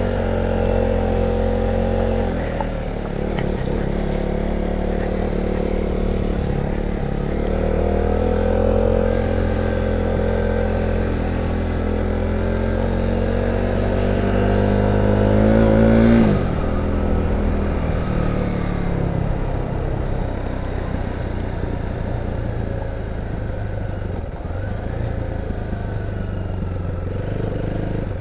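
KTM 390 Duke's single-cylinder four-stroke engine running under way on a gravel road. Its note climbs steadily for several seconds, drops sharply about sixteen seconds in, then runs lower and steadier.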